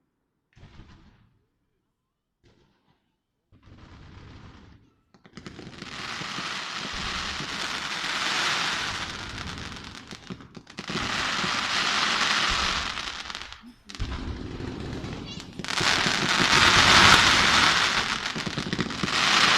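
Fireworks display: after a few near-silent seconds, long barrages of rapid crackling and popping shell bursts come in waves, loudest near the end.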